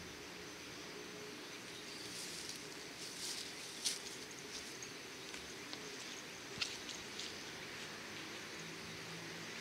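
Faint outdoor ambience: a steady low hiss, with a few short sharp clicks, the clearest about four seconds in and again about six and a half seconds in.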